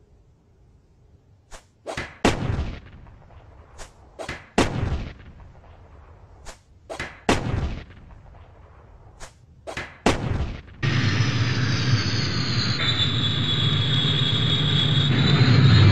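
Rifle shots in four quick groups of three, each shot ringing out briefly. About eleven seconds in, a steady military jet-engine noise with a high whine sets in and grows louder near the end.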